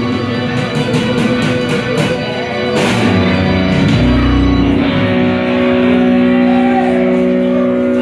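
Live rock band playing amplified electric guitar over a drum kit. Sharp drum hits come in the first half, with a strong hit about three seconds in, then held notes ring out steadily over the second half.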